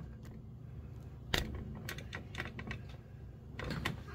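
A handful of irregular light clicks and taps, the sharpest about a second and a half in, over a steady low hum.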